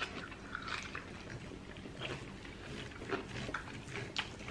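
Close-miked wet chewing and lip-smacking of people eating, a string of short, irregular smacks and clicks.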